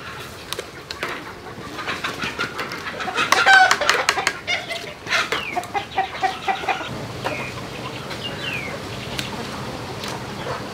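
Chickens clucking, loudest about three to four seconds in, followed by a run of quick, repeated clucks.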